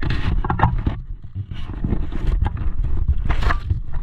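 Irregular clicks and scraping over a steady low rumble.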